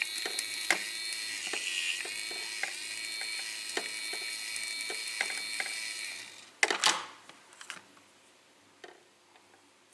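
Small toy mechanism, most likely the play set's toy dentist drill, whirring steadily with light clicks, stopping about six seconds in. A short plastic clatter follows about a second later.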